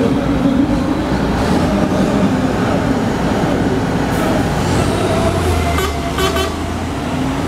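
Big diesel engines of two truck tractor units running steadily at a drag-race start line. About six seconds in comes a quick series of short, high-pitched toots.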